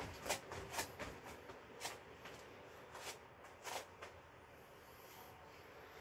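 Sneakered feet stepping quickly on a foam exercise mat, a sharp footfall about every half second, thinning after about two seconds to a few scattered steps.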